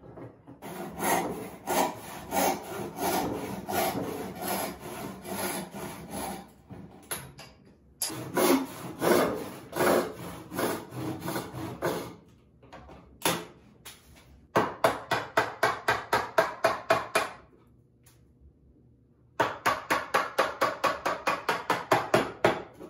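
A handsaw cutting green white oak in quick back-and-forth strokes, about four a second, in four runs with short pauses between them. The saw is cutting down the shoulders of a cylindrical tenon on a bench leg.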